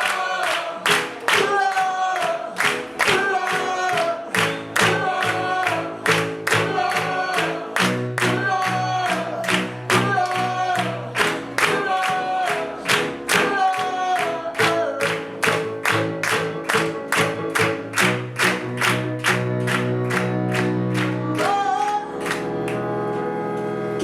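Live band playing the closing song with a wordless sung melody repeated over it and a steady beat about twice a second. Near the end the beat stops and a chord is held.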